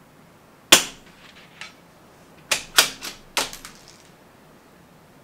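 A single crack from a CZ 457 .22 LR rimfire rifle, with a faint short tap about a second later. It is followed by a quick run of five or six sharp metallic clicks: the bolt being worked after the shot.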